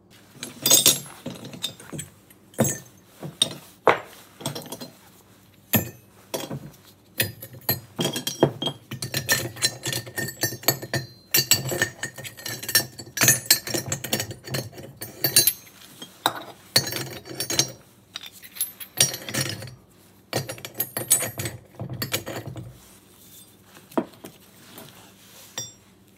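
Chunks of machined aluminum scrap clinking and knocking against each other and against metal as they are handled and loaded, in many irregular strikes.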